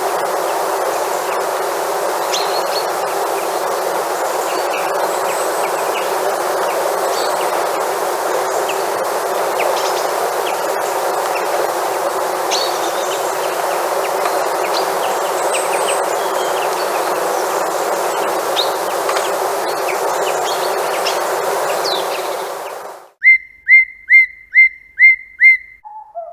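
Birds chirping sparsely and at scattered moments over a steady rushing background noise. Near the end this cuts off suddenly to a single bird giving six loud chirps in an even series, about two a second.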